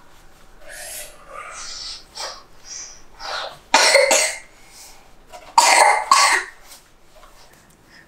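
A person coughing: two loud bouts of coughs, about four and six seconds in, with softer breathy sounds before them.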